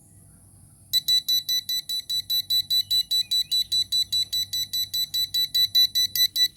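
A 9-volt battery smoke detector's alarm going off about a second in: loud, rapid high-pitched beeps, about four a second, the alarm set off by smoke.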